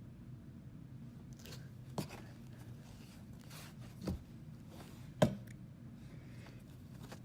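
Soft handling of magnetic slime and a magnet, with three short sharp knocks about two seconds apart, the last the loudest.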